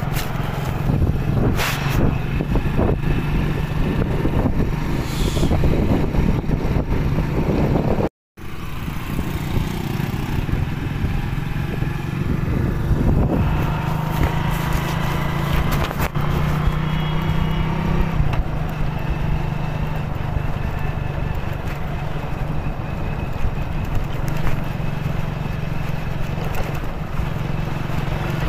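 Motorcycle engine running steadily as the bike is ridden, with an even rushing noise over it; the engine note climbs a little from about 12 to 18 seconds in, then drops back. The sound cuts out completely for a moment about 8 seconds in.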